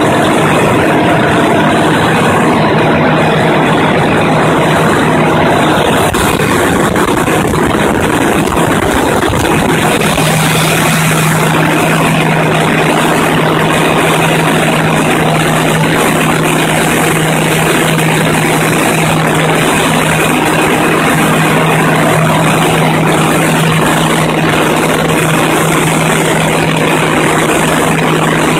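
Caterpillar 3412 V12 diesel engine running loudly and steadily at a constant speed. A steady low hum joins the engine noise about ten seconds in.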